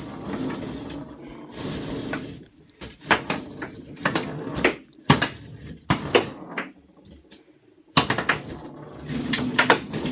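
Foosball table in play: irregular sharp clacks and knocks as the ball is struck by the players and hits the table, with the rods rattling. There is a short lull about seven seconds in.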